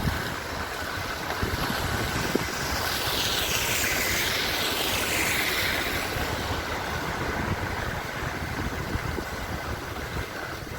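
Steady vehicle noise of tyres and wind while driving, with a sweeping hiss from about two and a half to six seconds in as another vehicle passes.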